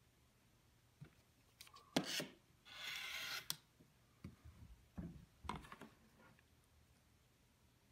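Rotary cutter blade rolling through layered quilting cotton on a cutting mat in one stroke of under a second, a steady hiss. Sharp clicks and knocks of a plastic quilting ruler being set down and shifted come before and after the cut.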